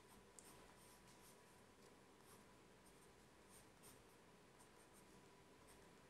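Faint scratching of a colored pencil on paper, a few short, light strokes against near silence.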